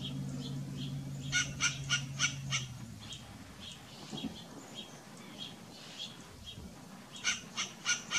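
Western gray squirrel giving short, rapid bark calls in two bursts of about four a second, with fainter calls repeating about every half second in between. A low steady hum underneath stops about three seconds in.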